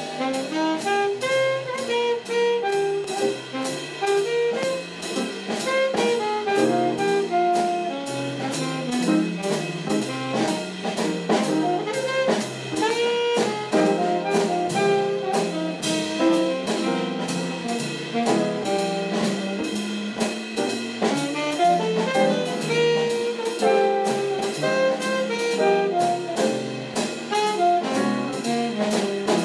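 Jazz sextet playing, with saxophone and brass carrying the tune over a drum kit keeping a steady beat.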